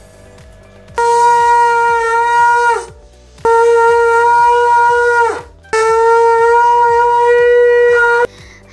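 A conch shell (shankh) blown in three long blasts, each held at one steady pitch. The first two sag down in pitch as the breath runs out; the third cuts off suddenly.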